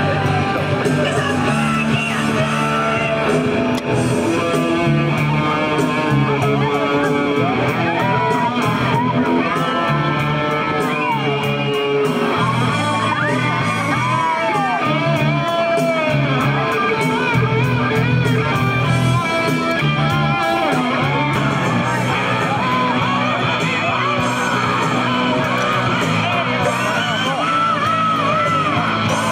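A band playing rock music: guitar, bass and a singing voice, with yells over it.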